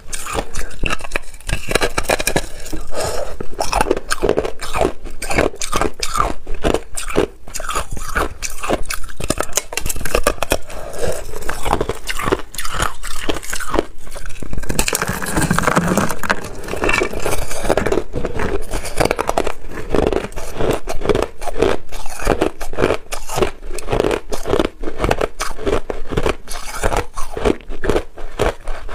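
Loud, rapid crunching of hard white ice being bitten and chewed: a dense run of crisp cracks and crunches.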